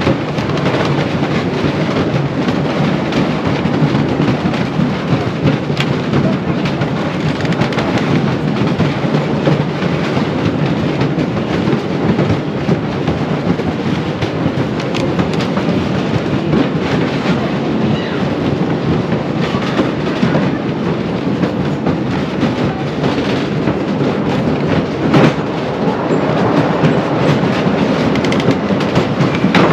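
Train of the 1920 L.A. Thompson Scenic Railway wooden roller coaster running along its track: a steady rumble and rattle from the wheels, with a sharp knock late on.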